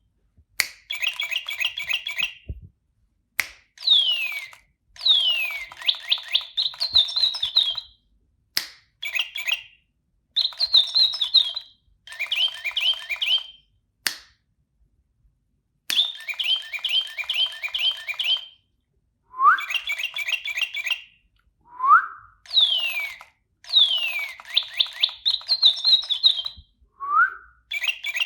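Electronic toy bird with a sound sensor playing bursts of recorded birdsong chirps, each phrase lasting a second or two with brief silences between, some with long falling whistles and a few short rising ones. Sharp clicks fall in several of the gaps.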